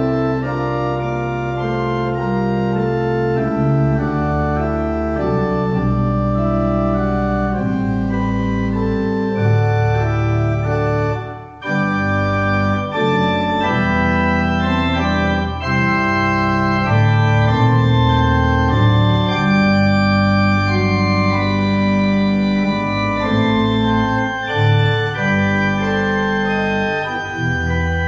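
Church organ playing sustained chords over deep pedal bass notes, with a brief break about eleven seconds in.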